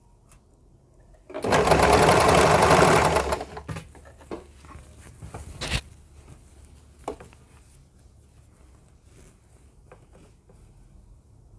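Electric sewing machine stitching in one fast run of about two seconds, starting about a second in. Afterwards, quieter rustling of cloth and a couple of sharp clicks as the fabric is repositioned.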